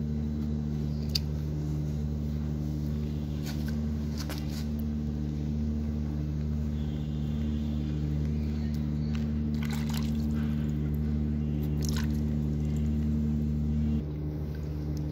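Hands rinsing small plantlets in a basin of water to wash agar off the roots, making a few faint splashes and squelches over a steady low hum.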